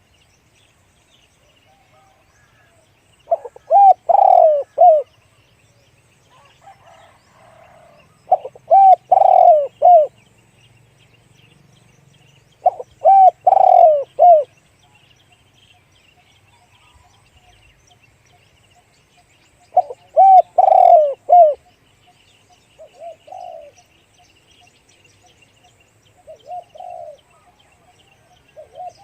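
Spotted dove cooing: four loud phrases of a few notes each, spaced several seconds apart, followed by three fainter, shorter coos near the end.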